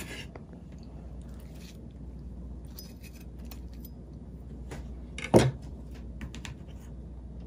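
Faint scattered clicks of handling kitchenware over a steady low hum, with one sharp knock a little past five seconds in.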